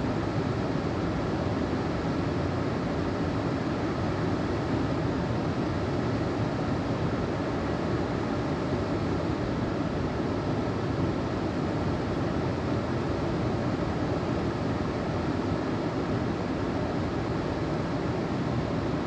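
Steady rush of creek water flowing into a canyon pool, an even unbroken roar with no changes.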